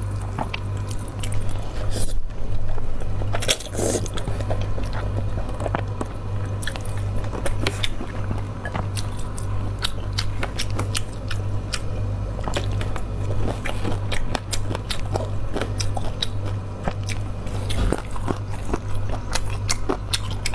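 Close-miked mukbang eating of alkaline noodles: slurping and chewing, with many small wet mouth clicks and smacks throughout. A steady low hum sits underneath.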